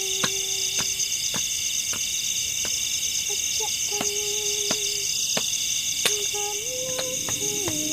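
Steady, high-pitched chorus of forest crickets and other insects, with light clicks scattered through it and a few held low notes that step up and down in pitch.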